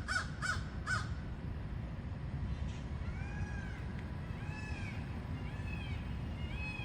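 A crow cawing a few times in quick succession at the start. From about three seconds in, a peafowl gives a series of short rising-and-falling calls, roughly one a second.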